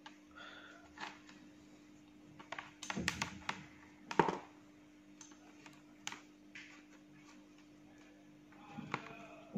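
A few light, scattered clicks and taps as metal multimeter test probes are handled and touched against a temperature controller's screw terminals, the loudest a little past three and four seconds in, over a faint steady hum.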